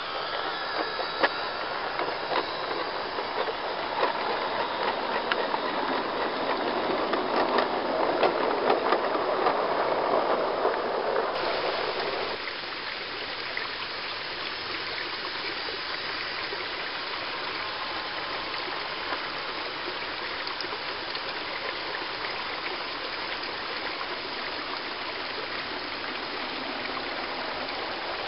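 Garden-railway model train, a Baguley Drewry diesel locomotive with coaches, rolling along the track with a rumble and many small wheel clicks. About twelve seconds in the sound cuts abruptly to a quieter, steady rushing noise.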